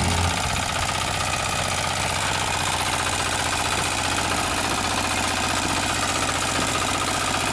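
Single-cylinder diesel engine of a 9 hp walk-behind tractor running steadily with an even, rapid firing rhythm.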